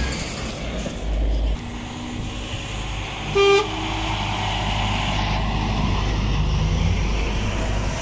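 Articulated lorries driving past close by, their diesel engines and tyres giving a steady rumble, with a single short horn toot about three and a half seconds in.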